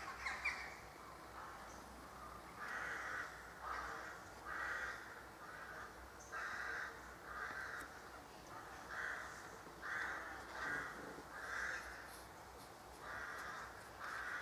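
Crows cawing repeatedly in a tree, a long series of short harsh caws about one every second.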